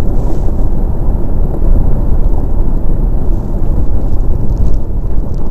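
Loud, steady wind buffeting the microphone on a DN iceboat sailing at speed over smooth ice, heard as a dense low rumble.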